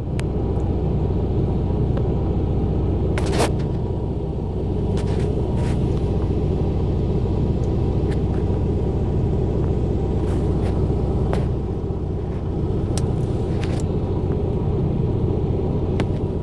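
Steady low rumble of an idling truck engine, with a few short clicks on top, the sharpest about three and a half seconds in.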